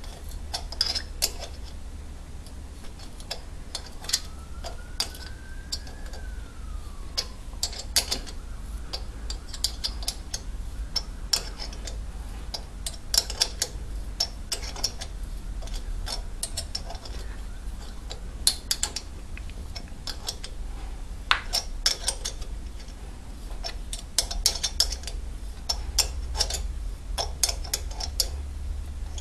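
Hand thread tap being worked into a rocker stud hole in a Moto Morini 500 cylinder head, giving irregular clicks and ticks as it cuts and is backed off every so often to break the chips.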